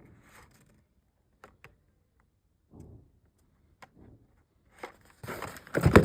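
Toy-car packaging being handled: a few light clicks and soft rustles, then a louder run of crinkling and rustling near the end as the packs are moved about and opened.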